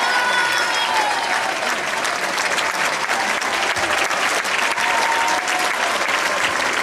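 Applause: many people clapping, dense and steady.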